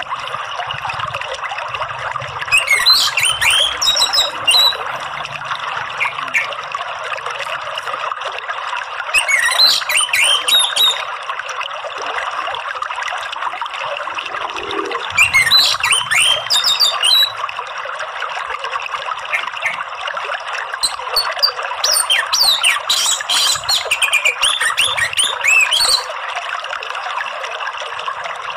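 Orange-headed thrush song in four phrases a few seconds apart, the last one the longest, over steady running water.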